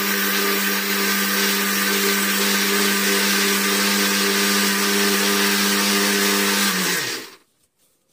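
Electric mixer grinder with a steel jar running steadily at full speed, grinding rice into flour. About seven seconds in it is switched off and the motor winds down in pitch to a stop.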